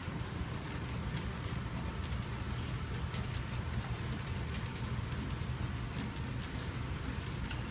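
HO scale tank cars rolling around a curve, their wheels giving a steady low rumble on the track with scattered light clicks.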